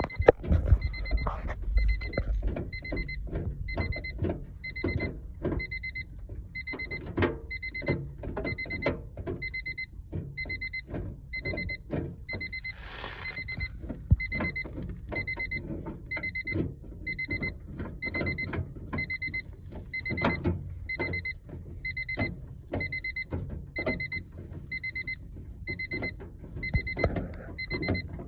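A car's warning chime beeping steadily, a short high beep a little faster than once a second, as sounds when a 1999 Honda Civic's door is open with the key or lights left on. Under it, irregular clicks and knocks of hand work on the door.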